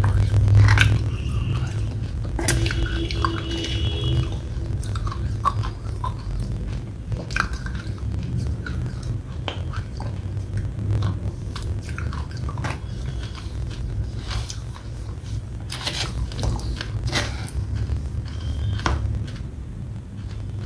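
Close-up mouth sounds of eating wet red clay paste by the spoonful: sticky chewing and lip smacking with many sharp, irregular mouth clicks, and a metal spoon scraping in a plastic tub.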